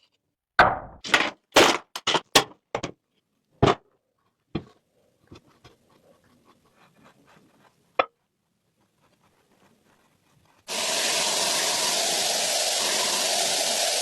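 A quick run of sharp clicks and knocks, about eight of them, from small hard parts of a diecast toy car being handled or taken apart, then fainter ticks. About ten seconds in, a loud steady whooshing noise starts suddenly and keeps going.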